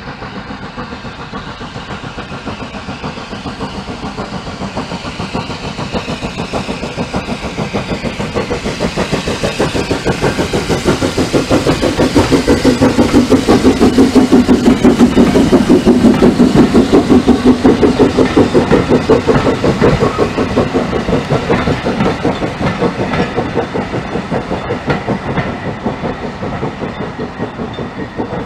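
Bagnall steam saddle tank locomotive working a passenger train past, its exhaust beating in a fast, even rhythm with the clatter of the coaches on the rails. The sound grows louder to a peak about halfway through as the engine passes, then fades as it draws away.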